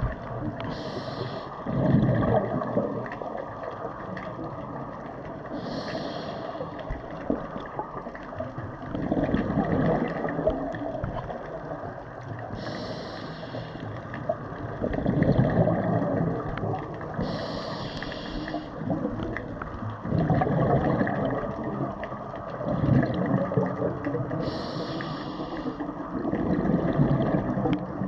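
A scuba diver breathing through a regulator underwater: a short hiss on each inhale, then a louder bubbling rush of exhaled air, repeating about every five to six seconds.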